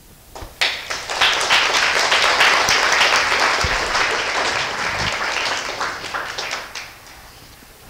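Audience applauding at the close of a talk: a few scattered claps swell within a second into full applause, which then dies away before the end.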